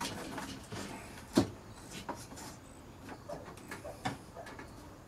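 Scattered knocks and clicks of a telescoping tension pole being handled and set against a wooden board on the camper ceiling, clamping a glued delamination repair. One sharp knock stands out about a second and a half in, with a smaller one about four seconds in.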